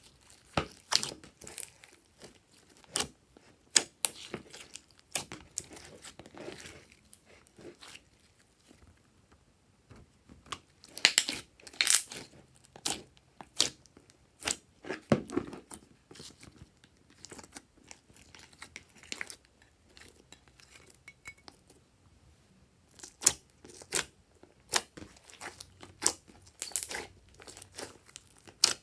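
Glossy slime being kneaded and stretched by hand: irregular crackling clicks and pops, some coming in quick clusters.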